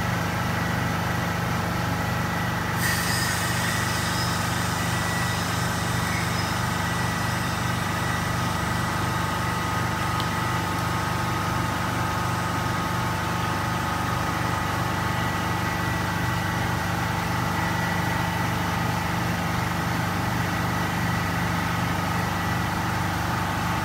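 High-pressure air compressor running steadily under load as it fills the cascade cylinders, which are at about 4,100 PSI and building toward its 4,500 PSI cut-off. A hiss of air joins about three seconds in as a cylinder valve is opened.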